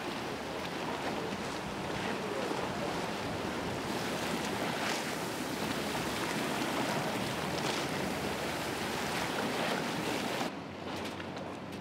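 Water rushing and splashing along the hull of an electric motorboat under way, with wind buffeting the microphone. No motor sound is heard over the water. The rush drops away sharply near the end.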